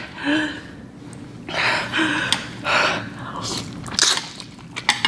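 Loud, noisy mouth sounds from a person eating fiery-hot noodles: several hissing bursts of breath and eating noise, with brief whimpers in between. The eater is struggling for breath from the spice.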